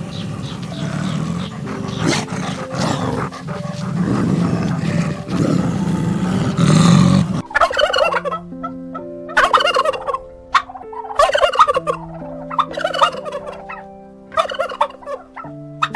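A flock of poultry calling: a dense clamour for about the first half, then separate warbling calls about every second and a half over background music.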